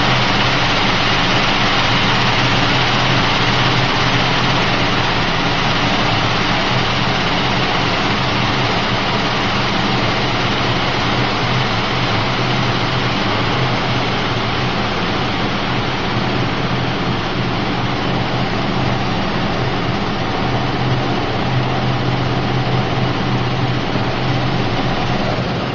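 Linear vibrating screen running: a steady low motor hum with an even rattling hiss from cashew pieces shaking across the wire mesh deck.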